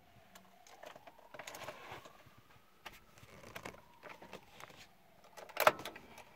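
Light clicks and rustling of hands and phone moving about inside a car cabin, then a sharper clack a little after five seconds as the ignition is switched on in the Audi TTS; the engine is not running yet.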